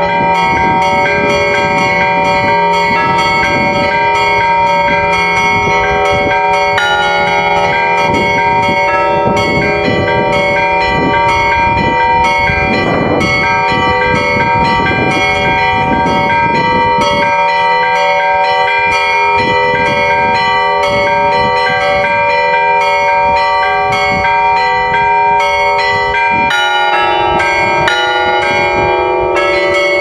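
Russian Orthodox cathedral bells rung by hand by a bell-ringer: a rapid, continuous peal of smaller bells struck several times a second over the ringing of larger bells. A deeper bell comes in near the end, and the ringing stops right at the end.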